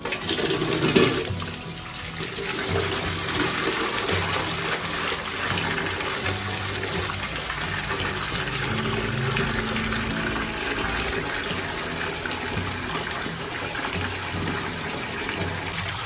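Tap water running steadily and splashing into a metal basin as hands swish and rinse soaked wood ear mushrooms, with soft background music underneath.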